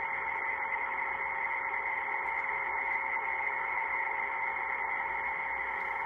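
Steady, muffled hiss with a faint constant hum underneath, unchanging throughout, typical of the noisy audio track of a bus surveillance camera.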